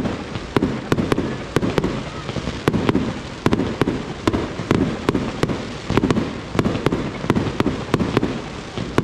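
Aerial fireworks bursting in quick succession: a steady run of sharp bangs, two to three a second, over a low rumble.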